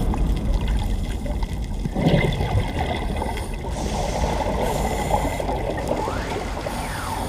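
Scuba exhaust bubbles and regulator breathing noise heard underwater through a camera housing: a steady low bubbling rush with a stronger burst about two seconds in. A faint tone rises and falls near the end.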